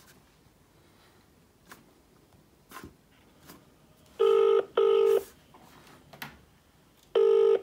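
British double-ring ringback tone played through an iPhone's loudspeaker: two pairs of short, steady rings about three seconds apart, the sign that the outgoing call is ringing and not yet answered. Faint taps on the phone come before the first pair.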